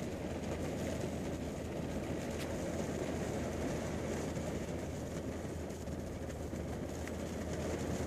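Rain falling on a car's roof and windows, heard from inside the car as a steady, dull rush with a few faint ticks of single drops.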